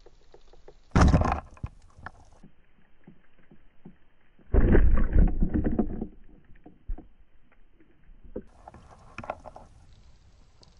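Speargun shot underwater: a short, sharp thud about a second in. About three seconds later comes a longer rumbling burst of water noise lasting around a second and a half as the speared mullet thrashes on the shaft, with faint clicks in between.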